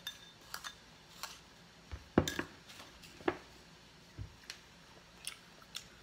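A spoon clinking and scraping against a small glass bowl while stirring crushed roasted peanuts with sugar and salt: scattered light clicks, the loudest a little over two seconds in and again about three seconds in.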